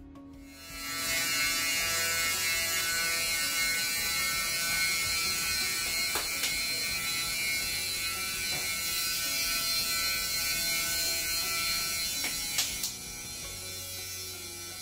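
Desktop CNC mill's spindle motor starting about a second in and running with a steady high whine and hiss while milling out a plastic storage-box lid, with a few short clicks. The level drops near the end.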